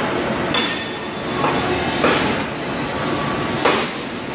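Rain-gutter roll forming machine running, its forming rollers working painted steel strip into gutter profile with a steady rattling mechanical noise. Three sharp metallic knocks stand out, about half a second, two seconds and three and a half seconds in.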